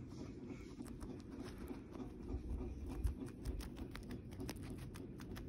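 Guinea pig chewing a kale leaf: a quick, irregular run of small crunching clicks.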